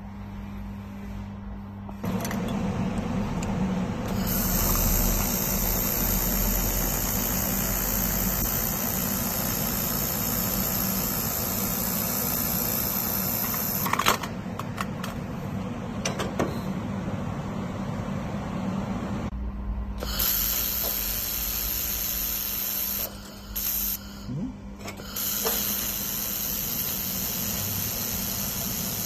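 Handheld laser welding machine at work: a steady low hum under a loud, even hiss that runs for long stretches of several seconds, stopping and starting again a few times.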